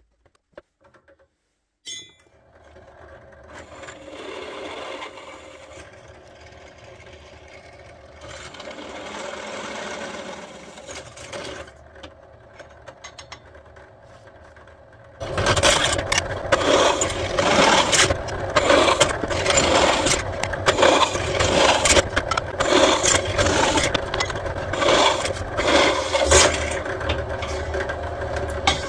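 A few small clicks as a bit is fitted in the pillar drill's chuck. About two seconds in, the drill's motor starts and runs with a steady hum. About halfway through, the bit cuts into metal plate and a much louder, ragged cutting and scraping noise full of quick clicks runs on.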